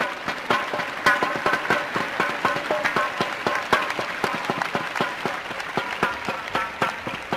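Arena crowd applauding the match-winning point of a badminton match: dense, irregular clapping mixed with cheering voices.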